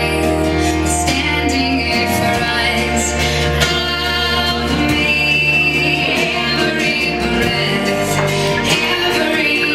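A recorded song with a singer and guitar, played over loudspeakers for a slow dance; steady bass notes under the voice.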